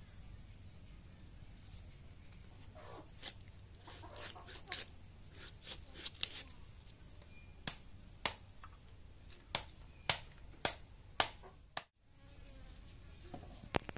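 Pieces of rohu fish being scraped and cut against a boti, the upright curved kitchen blade: about a dozen sharp wet clicks and scrapes over a faint steady high hiss, breaking off abruptly near the end.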